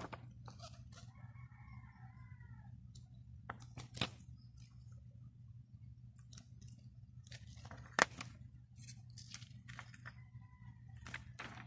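Hands handling a plastic CD jewel case and its paper insert and lyric booklet: paper rustling and sharp plastic clicks, the loudest about 4 and 8 seconds in, over a steady low hum. A faint bird call comes in about a second in.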